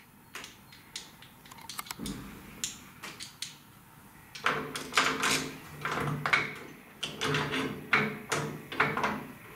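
Mounting screws being set and driven by hand with a screwdriver into an ATM safe lock body and its steel mounting: scattered small metallic clicks at first, then from about halfway a busier run of clicks and scraping as the screwdriver works.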